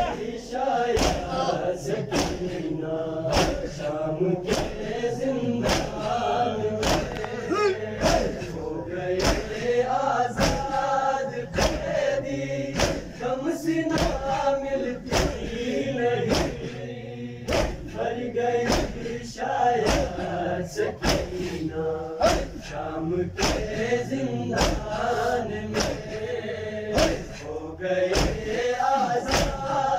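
Crowd of men chanting a noha (Shia mourning lament) in unison, kept in time by rhythmic chest-beating (matam) strikes, about three every two seconds.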